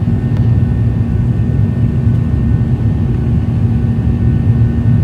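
Steady, loud cabin noise inside a Boeing 737-800 in flight: the CFM56 turbofan engines and rushing air make a deep, even roar with a constant low hum.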